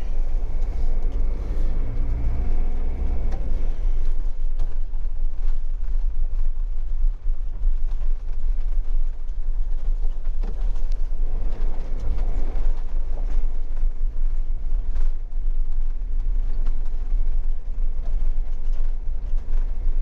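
Bailey Autograph 75-4 motorhome driving slowly, heard from inside the cab: a steady low engine and road rumble whose pitch rises a couple of times as the engine picks up.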